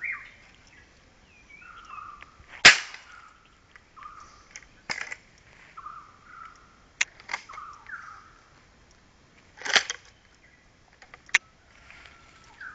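Gunshots: about six sharp cracks at irregular intervals, the loudest near the start.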